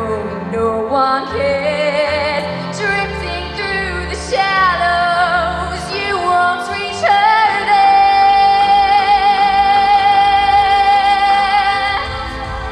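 A teenage girl singing solo into a handheld microphone over backing music, her voice amplified through the hall's PA. After a few short wavering phrases she holds one long high note for about five seconds, starting about seven seconds in.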